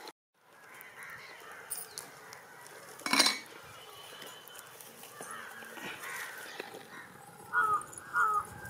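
Outdoor background noise with one sharp clatter about three seconds in and two short bird calls near the end.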